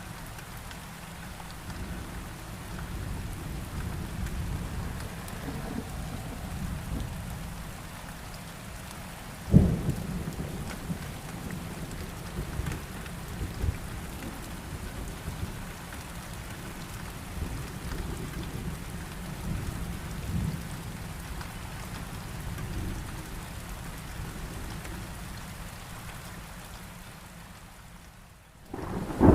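Steady rain with low rolling thunder, a sharp thunderclap about ten seconds in, and the sound fading away near the end.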